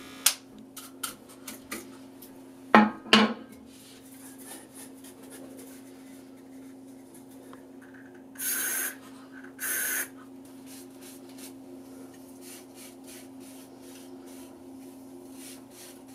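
Two short hisses from an olive-oil spray can, about a second apart, sprayed onto the scalp. Before them come a few clicks and two loud knocks of bottles and items being handled, and after them faint rubbing and ticking, all over a steady low hum.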